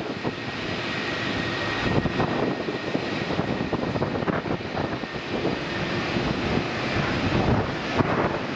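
Rolls-Royce Trent XWB turbofans of an Airbus A350-1000 running at low thrust as the airliner taxis, a steady jet rumble with a faint whine over the first few seconds.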